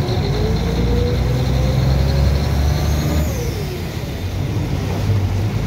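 Boat engine running with a steady low rumble, over water rushing past the hull. A higher engine tone climbs slowly and then falls away about three seconds in.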